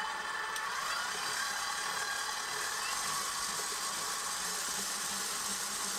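KitchenAid 7-quart Pro Line stand mixer running at high speed, its wire whisk beating cream toward stiff peaks. It makes a steady motor whine over a hiss. The whine rises a little in pitch during the first second as the mixer comes up to speed, then holds.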